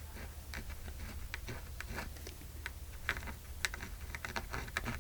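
Light, irregular clicks and taps of hands working with paper and glue while gluing down a piece on a handmade journal.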